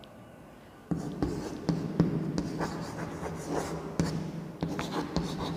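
Chalk writing on a blackboard: a run of sharp taps and scratching strokes that starts about a second in.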